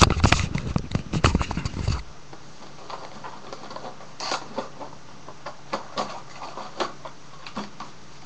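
Small cardboard accessory box being handled and opened: a dense burst of crackling and rustling for about two seconds, then scattered taps and rustles as the lid is worked open.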